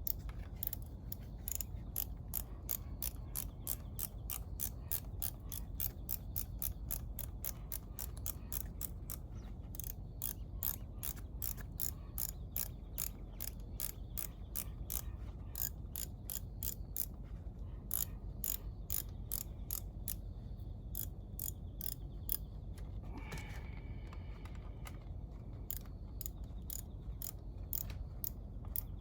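Hand ratchet wrench clicking in quick runs of about four or five clicks a second, with short pauses between them, as bolts are worked loose in motorcycle engine disassembly. A brief squeak comes about three quarters of the way through.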